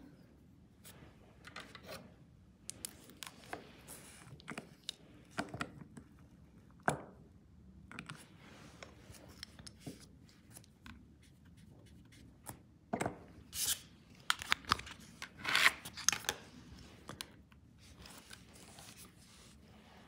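Scattered small clicks, taps and scrapes of nail-stamping work: a polish bottle handled and tools worked against a metal stamping plate. The sounds are busiest and loudest in the second half.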